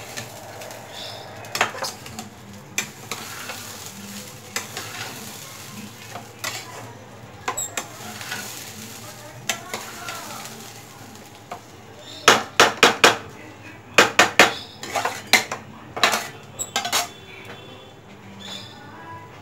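A spatula stirring rice as it fries in butter in a kadhai, scraping and clinking against the pan over a faint steady sizzle. There is a run of quick sharp knocks on the pan about twelve seconds in, with more until about seventeen seconds.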